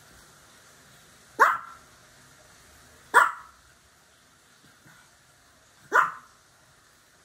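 A Pomeranian barking three times, single sharp barks spaced a couple of seconds apart.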